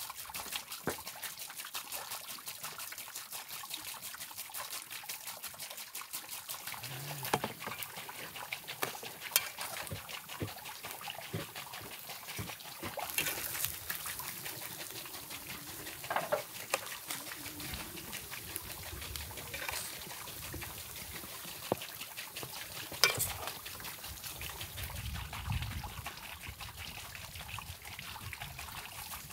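Fine, dense crackling and sizzling from a charcoal grill cooking sturgeon, with a few sharp clicks of metal utensils against the plate.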